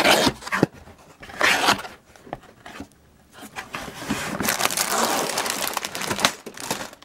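Cardboard box flaps being pulled open and clear plastic bags of Lego bricks crinkling and rustling as they are tipped out of the box. Short rustles come near the start and again around a second and a half in, followed by a longer stretch of crinkling.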